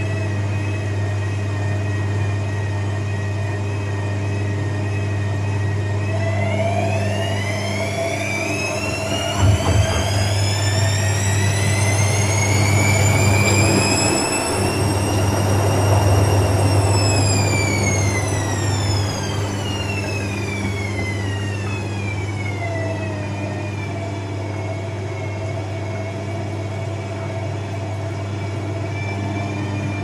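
AEG Lavamat front-loading washing machine running mid-programme over a steady low hum. Its motor whine climbs in pitch as the drum speeds up from about a fifth of the way in, peaks midway, then falls away as it slows. A couple of knocks come while it is speeding up.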